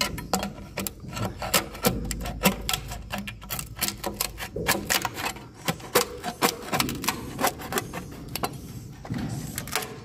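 Swiftlets clicking and chirping, a dense irregular run of sharp clicks several a second with short twittering notes between them.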